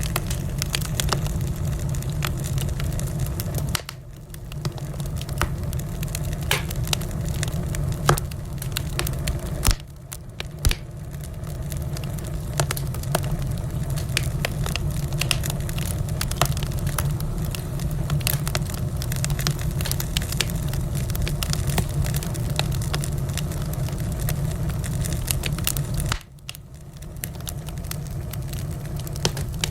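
Wood fire crackling: frequent sharp pops and snaps over a steady low rumble and hiss. The sound dips briefly three times.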